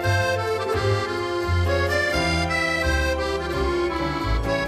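Background instrumental music: sustained melody notes and chords over a bass line that moves every half second or so.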